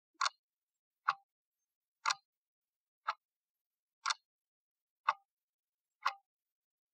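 Countdown-timer sound effect: a clock ticking once a second, seven short sharp ticks with silence between them.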